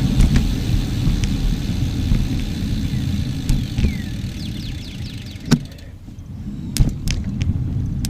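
Wind rumble on the microphone of a moving bicycle, with a few sharp clicks and rattles from the bike. The rumble eases for a moment about six seconds in, then builds again.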